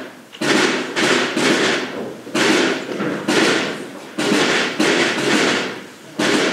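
A drum beaten in a steady rhythm, about ten hits in loose groups of two or three, each with a short echoing tail in a large room.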